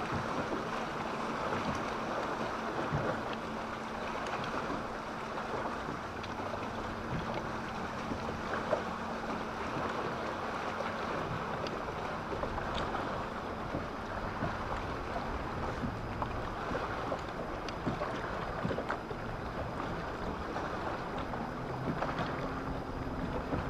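Small waves lapping against a bass boat's hull, with wind buffeting the microphone. A faint steady hum sits underneath, fading out early and coming back near the end.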